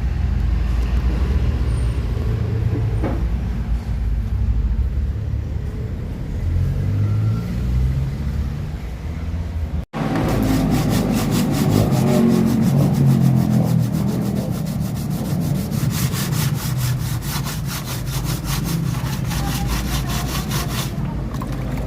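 Low steady rumble of a vehicle. After a sudden cut, a fast, repeated rasping scrape of car bodywork being worked on in a body-repair shop.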